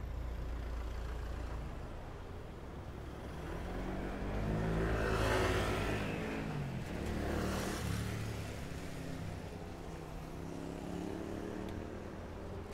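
Street traffic heard from a bicycle: motor vehicles passing close by over a steady low rumble. The loudest pass swells and fades about five seconds in and another follows two seconds later.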